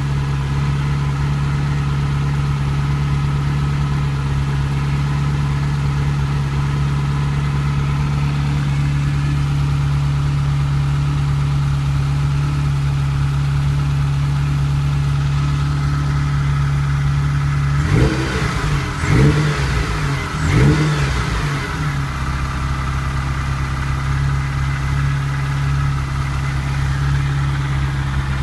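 Ferrari 308 QV's V8 idling steadily, revved three times in quick succession about eighteen to twenty-one seconds in, each rise and fall in pitch, then settling back to idle. It runs without the ticking it had, now that the cam belt is set with new aluminium camshaft pulleys and the cams dialled in.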